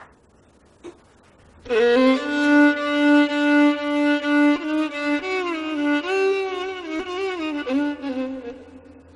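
Violin bowed slowly: a long held note begins about two seconds in, then the pitch slides from note to note before fading out near the end.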